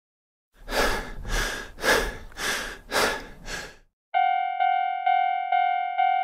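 Six quick, noisy breaths, panting about two a second. These are followed a little past halfway by a steady electronic tone with a few overtones, pulsing about twice a second.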